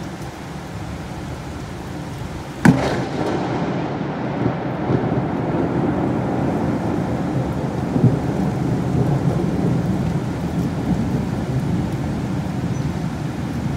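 A close thunderclap about three seconds in: a sudden loud crack, then rumbling that rolls on for several seconds, with another jolt about eight seconds in, over steady heavy rain.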